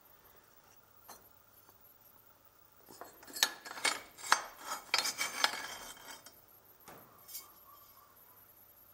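Scrap steel tube offcuts clinking and clattering against each other as a piece is pulled out of a storage rack. The sharp metallic clinks come in a quick run about three to six seconds in, with a few lighter knocks after.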